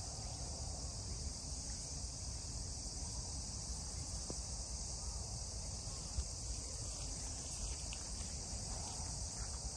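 A steady, high-pitched chorus of insects in the grass, with a low rumble of wind on the microphone. One small click about six seconds in.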